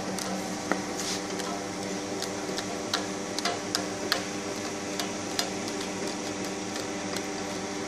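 Streamfeeder friction feeder and its belt conveyor running with a steady hum, feeding flat folding cartons. Irregular sharp clicks sound as the cartons are fed out one at a time.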